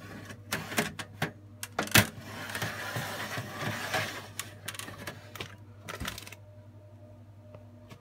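Clicks and knocks of a server system board being pressed down into a sheet-metal blade tray to seat it fully, the loudest knock about two seconds in. A scraping slide follows in the middle, then a few more clicks before it settles.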